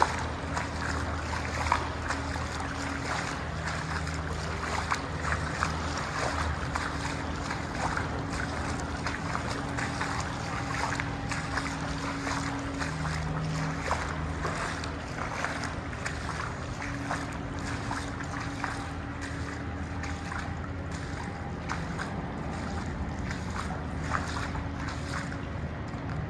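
Steady low drone and hiss echoing inside a concrete tunnel, with a low hum and many small scattered crackles and ticks.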